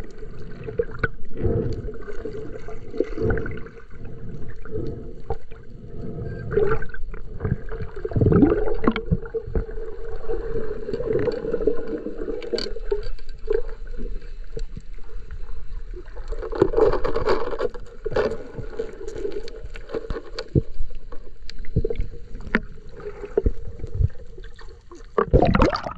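Muffled underwater sound picked up through a submerged camera housing: water moving and gurgling, with scattered clicks and knocks throughout. A loud burst of noise comes near the end as the camera nears the surface.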